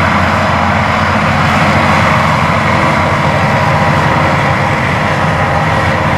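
Large diesel farm machinery running steadily under load: a constant heavy engine hum with a dense mechanical rush over it.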